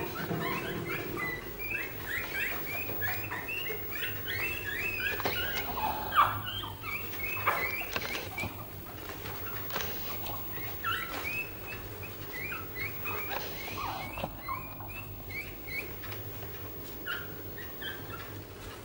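A litter of two-week-old puppies squeaking and whimpering: many short, high calls in quick succession. They are thickest in the first half, come again around the middle, and thin out toward the end.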